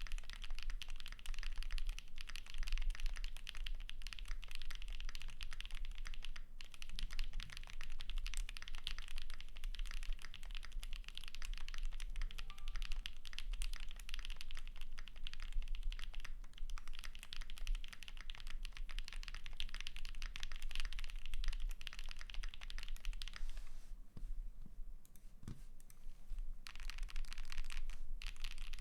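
Continuous typing on a custom 60% mechanical keyboard with Haimu x Geon White Tactile switches, PBT keycaps and an aluminium plate: a fast, dense run of key clicks. There is a pause of about two seconds near the end, then the typing resumes.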